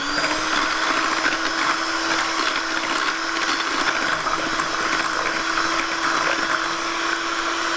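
Electric hand mixer starting up and running at one steady speed, its beaters whisking a liquid egg-and-cream quiche filling in a glass bowl; a steady motor whine over a whirring hiss.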